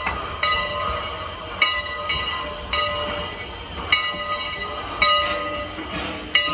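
Steam locomotive No. 89's bell ringing as the engine moves slowly: about eight strokes, roughly one a second, each a bright ringing tone that fades until the next stroke, over the low rumble of the locomotive.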